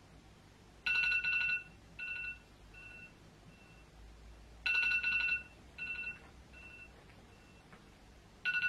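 A phone's ringing tone: a bright two-note ring under a second long that sounds three times, about every four seconds. Each ring is followed by a few fading echoes.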